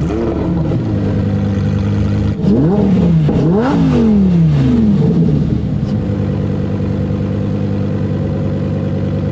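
Sports car engine idling, revved up and back down twice in quick succession about two and a half seconds in, then settling back to a steady idle.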